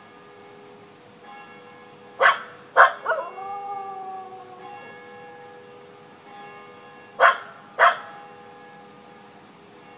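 A Welsh Terrier barks twice about two seconds in, then gives a short howl that slides slightly down in pitch, and barks twice more about seven seconds in. Church bells ring steadily underneath.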